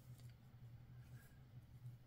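Near silence: room tone with a low steady hum and a few faint ticks just after the start.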